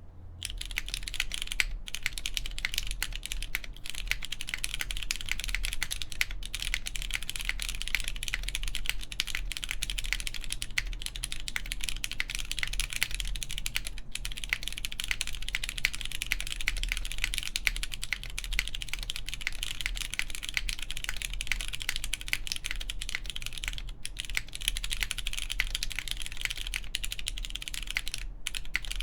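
Continuous fast typing on a plateless mechanical keyboard with lubed Cherry MX Brown switches and GMK doubleshot ABS keycaps: a dense stream of crisp key clicks, with only brief pauses now and then.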